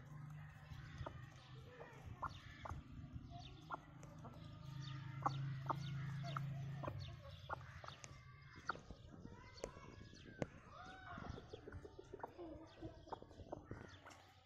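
Aseel chickens clucking softly while feeding, with many sharp little taps of beaks pecking grain. A low steady hum underlies the first half, loudest just before it stops about seven seconds in.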